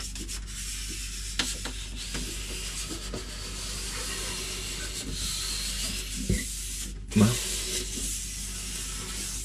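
Steady rubbing hiss of hands pressing and smoothing a bendable plastic shower-curtain track against the ceiling, with a few light knocks.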